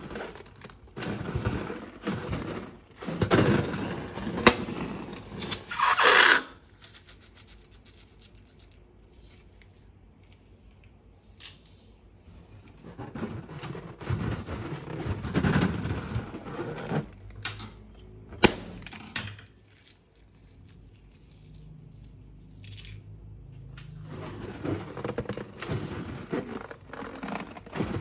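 Slime being squeezed and mixed by hand, with squishing, crackling and a few sharp clicks. The sound comes in waves of a few seconds with quieter stretches between them.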